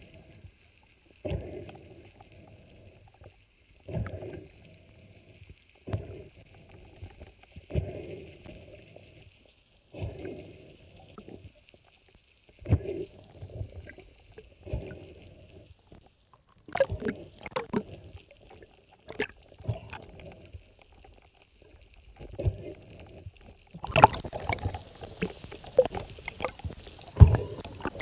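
Water sloshing and gurgling in surges about every two seconds, turning into steadier, louder splashing about four seconds before the end.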